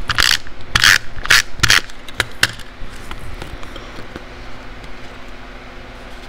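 Cardstock paper pieces being handled, slid and pressed together by hand, giving several short rustles and scrapes in the first two and a half seconds, then only faint handling noise.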